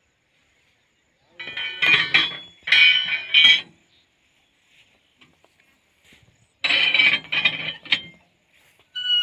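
Metal parts at the front of a stationary tractor clinking and clanking as they are handled, in two bouts of a couple of seconds each, with sharp ringing knocks. The tractor's engine is not running.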